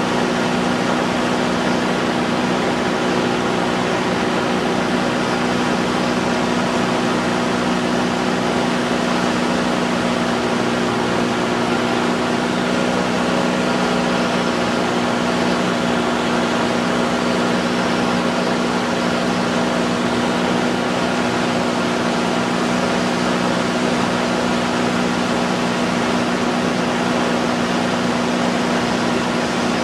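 Light aircraft's engine and propeller droning steadily in level flight, with an even rush of air noise over it.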